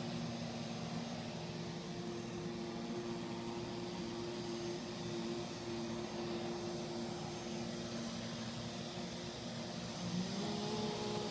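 Neato robot vacuum running: a steady motor whir with a low hum, and a slightly higher tone joining near the end.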